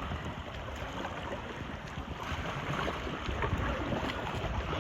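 Wind buffeting the microphone and sea water lapping around a small paddled canoe, muffled through a phone's waterproof pouch.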